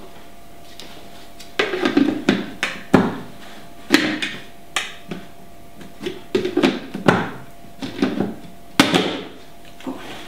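Irregular knocks and clunks of kitchen things being handled, the later ones from a countertop blender's jar and lid being set and locked in place.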